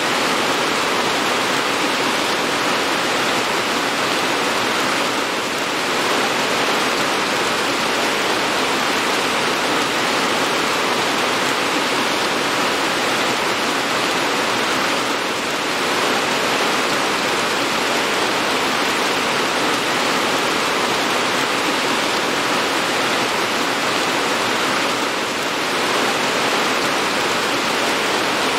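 Steady, dense rain: an even hiss of falling drops with no separate hits, dipping slightly in level about every ten seconds.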